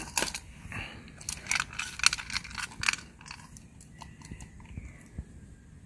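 German Shepherd eating dry kibble and raw meat from a stainless steel bowl: a quick run of sharp crunches and clicks, thinning to a few faint clicks after about three seconds.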